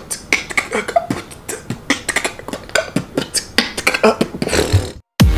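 A man beatboxing: a fast, even run of sharp mouth clicks and beats with short voiced bits, cut off suddenly about five seconds in.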